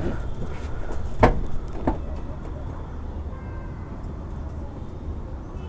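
Racing pigeons cooing faintly in a loft over a steady low rumble, with two short knocks a little over a second in and just before two seconds in.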